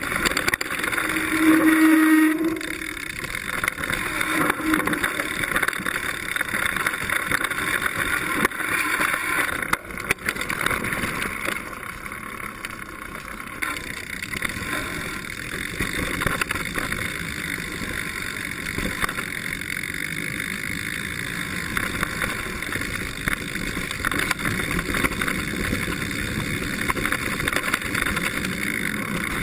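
Mountain bike descending a dirt trail, picked up by a seatpost-mounted GoPro Hero2: a steady rush of tyre and wind noise, with the bike rattling over the rough ground. A short low tone about two seconds in is the loudest moment.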